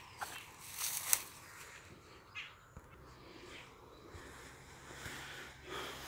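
Footsteps and rustling of someone walking through dry grass and undergrowth: a few crackling steps in the first second and a half, then quieter rustles.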